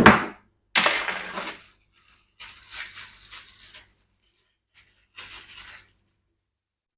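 Handling noise from a router and its accessories being moved by hand. A sharp knock as something is set down comes first, then three separate bursts of rustling and scraping, the first the loudest.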